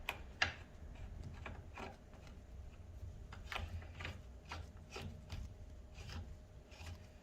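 Irregular light clicks and rubbing scrapes of metal parts as a bicycle pedal is threaded by hand into its crank arm, with one sharper click about half a second in.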